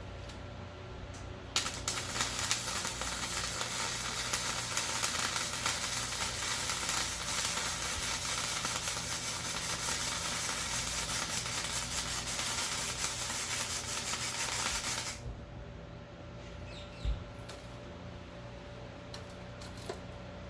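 Electric arc welding on steel square tubing: a steady crackling sizzle that starts abruptly about one and a half seconds in and cuts off suddenly some thirteen seconds later, as one bead is laid. A faint steady hum runs underneath.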